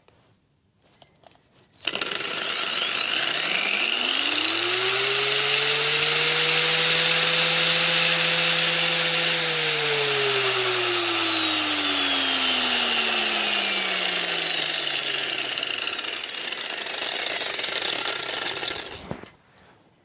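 Angle grinder fitted with a soft-start module, switched on about two seconds in: its motor spins up gradually, the whine climbing in pitch over several seconds, then runs. Its tone sinks slowly in the second half, and the sound cuts off near the end as it is switched off.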